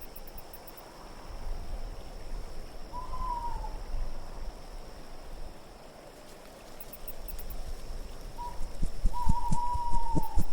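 An owl hooting over a steady wind bed: one short falling hoot, then a brief note followed by a longer wavering hoot near the end. A few soft low knocks come in near the end as well.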